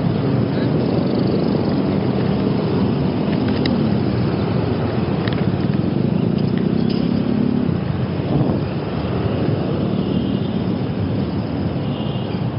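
Road traffic: motor vehicle engines running close by over a steady rush of noise, with one engine note fading out about eight seconds in.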